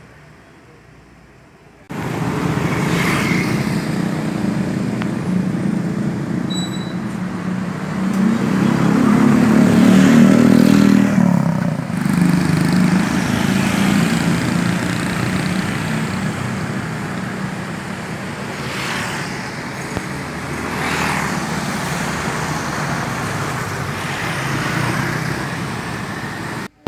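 Road vehicle running in traffic, with engine hum and road noise. It swells louder about eight seconds in and eases off about twelve seconds in.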